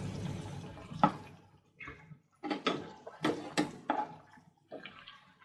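Marinated chicken pieces deep-frying in sunflower oil: a sizzling hiss that fades over the first second or so, followed by a run of sharp crackles and knocks.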